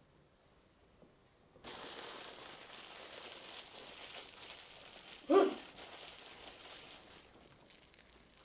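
Foley rustling and crinkling, like something being crumpled, starting about a second and a half in and fading out near the end, with one short louder sound about five seconds in.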